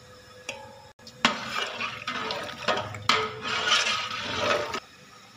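A spoon stirring orange food colour into sugar water in a metal pot, scraping and clinking against the pot amid sloshing liquid. It starts sharply about a second in and stops shortly before the end.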